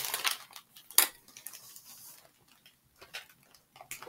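Small items and their packaging being handled and set down: a few light clicks and knocks, the sharpest about a second in.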